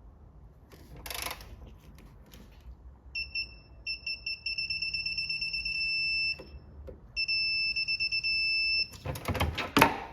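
Electronic beeper of a digital torque wrench as a bolt is pulled up to torque: quickening beeps that merge into a steady tone as the set torque is reached, twice. A burst of rapid ratchet clicks follows near the end.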